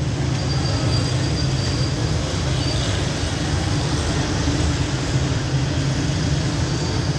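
Fish deep-frying in large woks of hot oil, sizzling steadily, over a low steady rumble.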